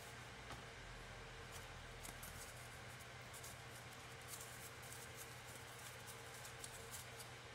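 Faint, scattered light scratching and rustling as a piece of cardboard and a paper towel are handled, over a steady low hum.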